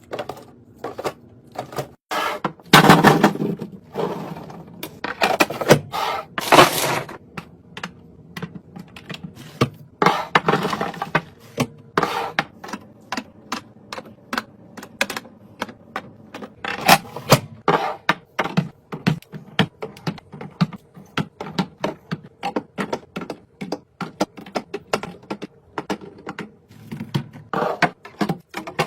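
Frozen-treat packages handled while restocking a freezer: a rapid run of clicks, taps and knocks as boxes and packets are set down and shifted. Several longer crinkling rustles of plastic or cardboard packaging come in between.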